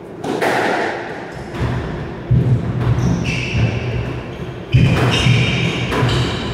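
Squash rally: the ball is struck by rackets and hits the court walls, with sharp impacts a couple of seconds apart. Shoes squeak on the wooden floor between shots.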